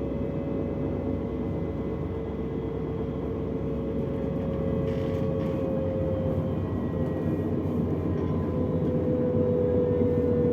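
Interior running noise of a DB Class 425 electric multiple unit: a steady rumble with a traction motor whine that falls slightly in pitch and then holds steady, while the overall noise slowly grows louder.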